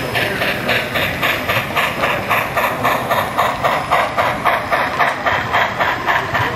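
HO scale model steam locomotive running with its sound playing, a steady chuffing in an even beat of about four a second as it pulls a string of coal hoppers.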